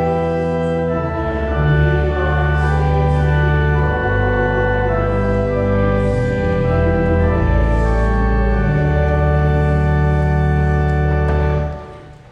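Organ music: slow, held chords over deep bass notes, changing every second or two and fading out near the end.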